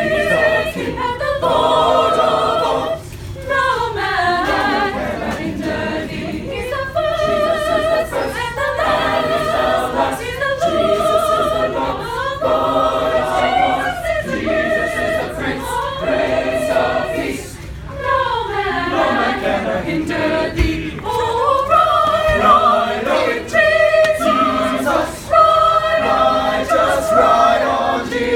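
A choir singing a cappella in harmony, holding chords that change every second or so, with a few passages where the voices slide in pitch.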